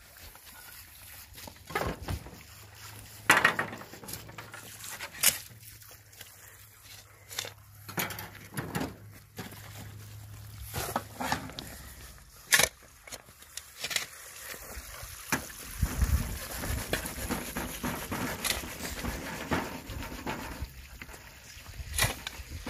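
A long-handled digging tool striking and scraping stony soil, in irregular sharp strikes a second or two apart. A low rumble comes in during the last several seconds.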